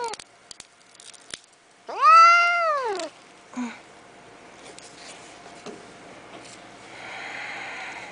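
An injured domestic cat meowing in pain: one long, loud meow about two seconds in that rises and then falls in pitch, followed by a short low cry. A few faint clicks come in the first second or so.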